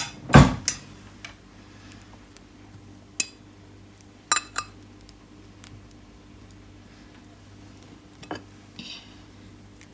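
Dishes and cutlery being handled while bananas go onto waffles on a plate: a dull thump about half a second in, then a few scattered clinks and a short scrape near the end.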